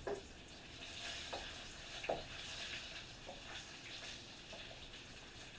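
Diced tomato and pepper mix sizzling steadily in hot oil in a saucepan, with a few light knocks of a utensil as it is stirred.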